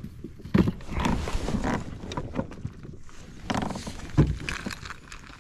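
Irregular knocks, clatter and rustling of fishing gear being handled on a kayak, as the rig is changed over to an A-rig.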